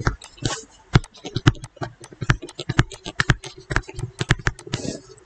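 Stylus tapping and scratching on a writing surface during handwriting: an irregular run of small clicks, several a second.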